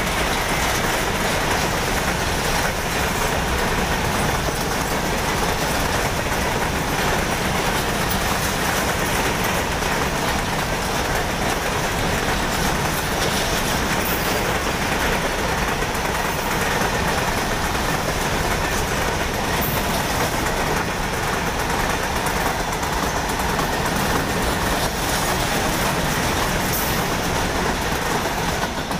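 A long freight train of covered goods wagons passing close at speed: a steady, loud noise of its wheels running on the rails.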